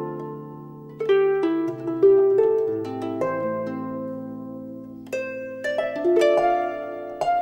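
Instrumental background music of plucked string notes. Chords are struck about once a second or so and left to ring and fade over held lower notes.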